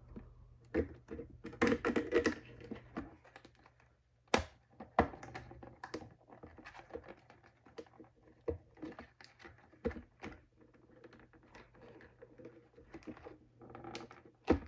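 Stiff plastic clamshell packaging being pried and bent open by hand: irregular crackles and clicks, with one sharp crack about four seconds in.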